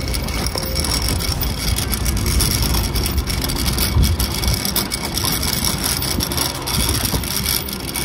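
Metal wire shopping trolley rattling as its wheels roll over rough tarmac, a steady rattle with a low rumble.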